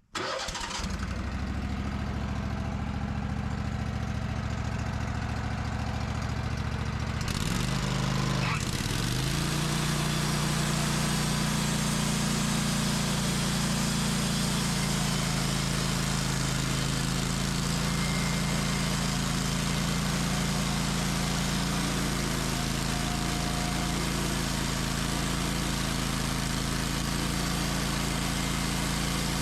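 Band sawmill's engine starts up and runs. About seven seconds in it grows louder and fuller, with a brief dip in pitch near eight seconds, then runs steadily as the blade cuts through a pin oak log.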